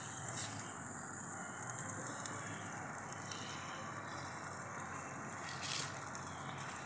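Spiced sauce in a kadhai heating on the stove: a soft, steady sizzle as it comes up to a simmer, with a brief tap near the end.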